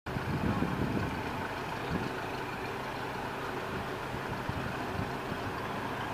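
Hunslet 0-4-0 diesel-mechanical shunting locomotive's engine running steadily as it moves slowly along the narrow-gauge track.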